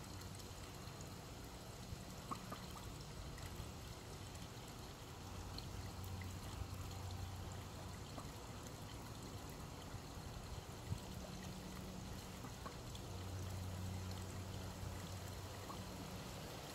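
Soft trickling and splashing of pool water as juvenile mallards dabble in it, over a low steady hum that swells a couple of times. There are a few small clicks, the sharpest about two-thirds of the way through.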